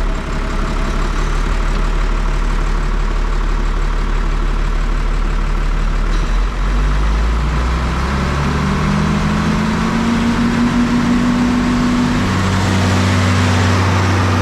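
Semi truck's diesel engine running steadily; about halfway through its pitch climbs over a few seconds, then holds steady at higher revs.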